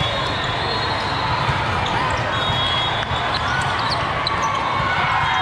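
Busy indoor volleyball hall din: many voices chattering, volleyballs being hit and bouncing on the courts, and a few short high squeaks, all echoing in the large hall.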